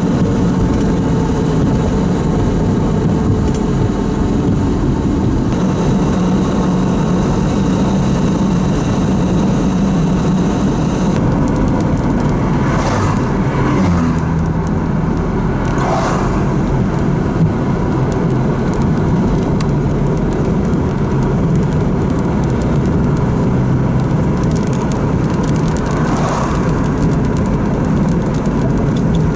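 Car driving on a road, heard from inside: steady engine and tyre noise with a low rumble and an engine pitch that shifts now and then, and a few brief swishes.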